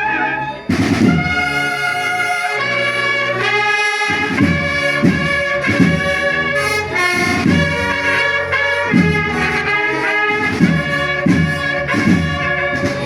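Brass band music, trumpets and trombones playing a tune over a steady beat.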